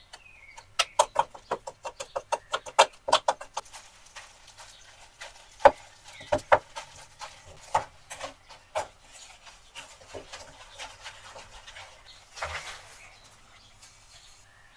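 A table knife cutting soft butter into icing sugar in an enamel bowl, clicking against the bowl in quick strokes, about four a second, for the first few seconds. Then a wooden spoon mashing and stirring the mix, with scattered knocks on the bowl and soft rubbing.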